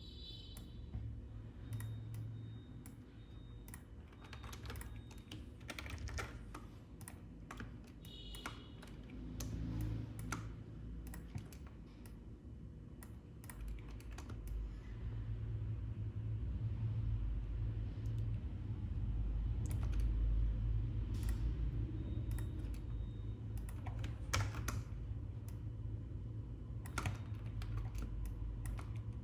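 Computer keyboard and mouse clicks, irregular and scattered, as someone works at a computer. A steady low hum runs underneath and grows louder about halfway through.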